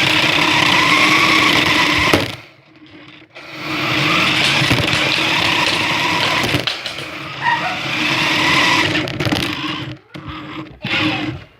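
Toy remote-control car's electric motor and gears whining as it drives, heard up close from a phone taped on the car. It runs in two spells with a brief stop a couple of seconds in, the pitch rising and falling with speed, then breaks up near the end.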